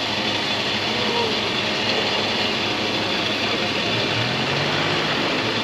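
Off-road 4x4 vehicle running along a track: a steady wash of engine and tyre noise.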